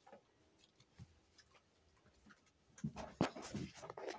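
Faint handling noises: a few soft ticks, then a short flurry of rustles and light knocks about three seconds in, as plush toys are moved about.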